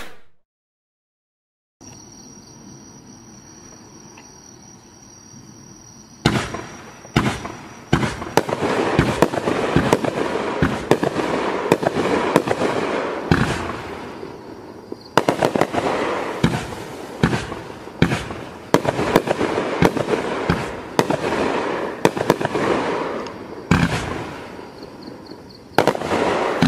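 A 500-gram consumer fireworks cake (Boom Wow "Red", 26 shots) firing after a brief silence and faint insect chirring. From about six seconds in, the tubes go off in quick succession: sharp launch reports and bursting breaks with crackle between them, continuing to the end.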